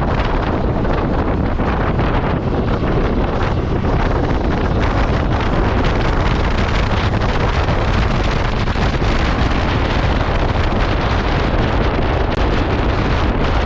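Steady wind rushing over the microphone of a moving KTM 390 Adventure motorcycle, with the bike's single-cylinder engine running underneath.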